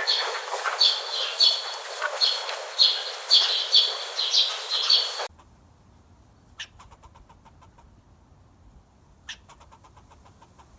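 A bird chirping over and over, about two short high chirps a second, which cut off abruptly about five seconds in. After that only faint scattered clicks remain.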